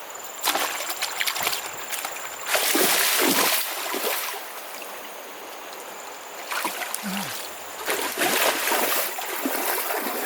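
Hands slapping and churning shallow river water, splashing in several bursts; the loudest comes about three seconds in.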